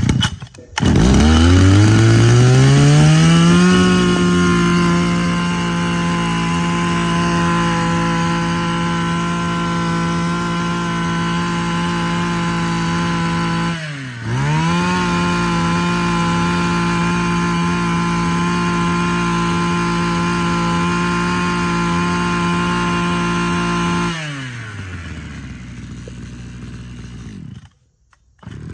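Mitsubishi TL26 26 cc two-stroke brushcutter engine starting up, rising over a few seconds to full throttle and holding there. It dips and recovers once about halfway through, drops back to idle about three-quarters of the way in, and stops near the end.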